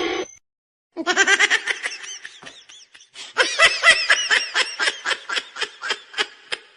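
High-pitched laughter in quick, even ha-ha pulses, in two runs: the first starts about a second in, and after a brief break a second, louder run goes on to the end.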